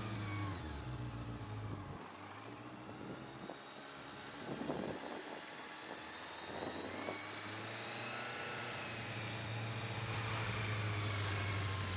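Motorcycle engine heard from a camera mounted on the bike during a gymkhana run around cones. The engine note drops away about two seconds in, with a couple of brief rushes of noise, then rises and runs steadily louder again from about eight seconds.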